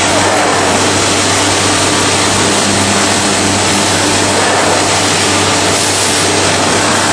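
Through-feed CNC woodworking machine for door production running: a loud, steady machine noise over a low hum.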